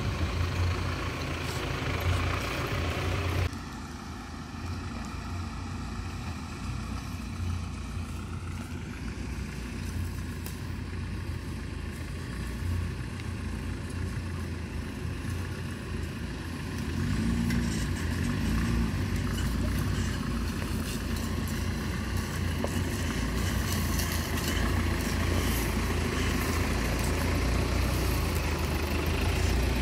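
Mahindra off-road jeep engines running at low speed as the jeeps crawl up a rocky dirt trail. The sound drops suddenly a few seconds in, then grows louder in the second half as a convoy approaches, and one jeep passes close by near the end.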